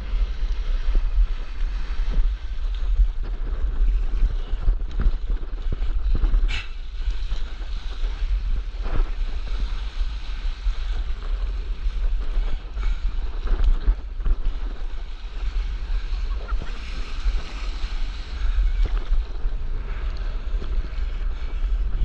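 Wind buffeting an action camera's microphone with a steady low rumble, over water sloshing and splashing around a stand-up paddleboard in the surf.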